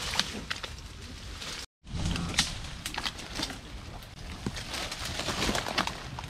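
Mangrove branches and leaves rustling, with irregular twig snaps and cracks, as people push through the scrub on foot. The sound drops out for a split second just under two seconds in.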